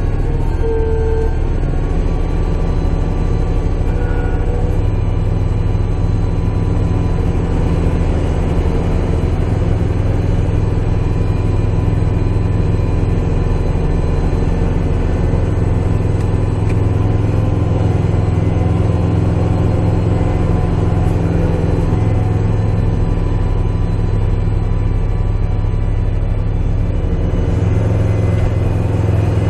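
Kubota tractor's diesel engine running steadily under load while its front-mounted snowblower clears snow, heard from inside the cab. Near the end a faint whine rises in pitch.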